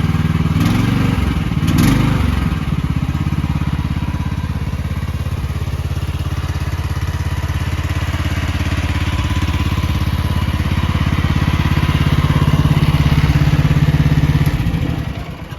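The 13.5-horsepower gas engine of an AGT H15R mini excavator running steadily, with a brief rise in pitch and a couple of knocks about a second or two in. The engine sound fades away and stops near the end.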